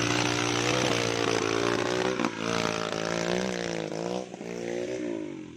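Suzuki Jimny engine working hard off-road, its pitch wavering up and down as the throttle is worked, with a dense hiss over it. It fades away near the end.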